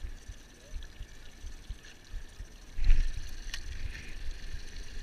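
Wind buffeting the microphone and choppy water slapping against a small boat's hull, with a louder rush about three seconds in and a single sharp click just after.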